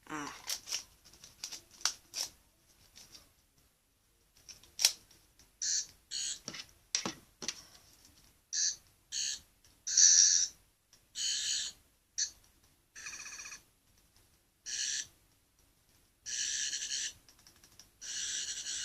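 Toy sonic screwdriver's electronic sound effect, played in a dozen or so short high warbling bursts through its small speaker as its buttons are pressed to check that it still works. A few plastic clicks of handling come first.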